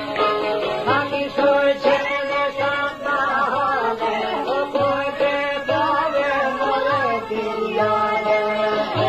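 Albanian folk song: a voice singing a wavering, ornamented melody over instrumental accompaniment, with a steady low drum beat.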